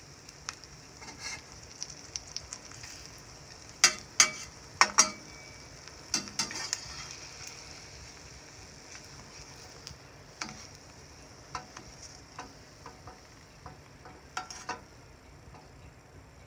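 An egg sizzling in a stainless steel frying pan, with a metal spatula scraping and clicking against the pan as it is worked under the egg. The loudest scrapes come about four to five seconds in, a few more later, and the sizzle weakens near the end.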